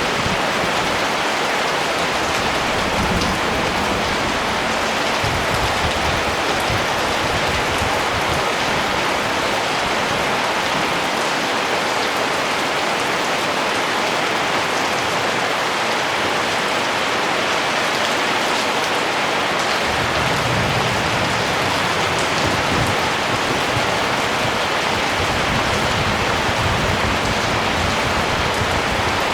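Steady rain falling and pattering on surfaces, an even hiss with many fine drop ticks.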